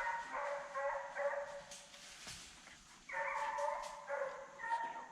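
Several hunting hounds baying on a deer's trail: long, drawn-out bawls from more than one dog, overlapping at different pitches in three spells with short gaps between.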